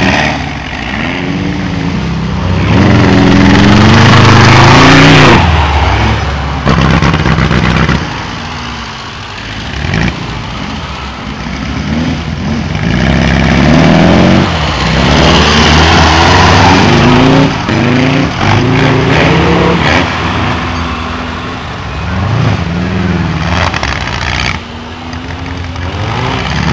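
Off-road buggy engines revving up and falling back again and again in loud rising and falling sweeps as they climb over dirt mounds.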